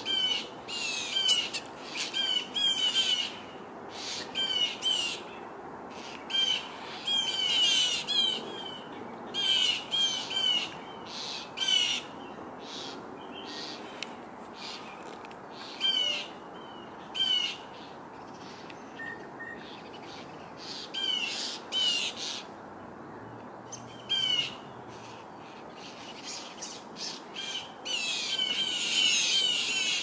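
Birds mobbing a perched owl, giving repeated short, harsh scolding calls in clusters with brief gaps. The calls are alarm calls at the owl, busiest at the start and again near the end.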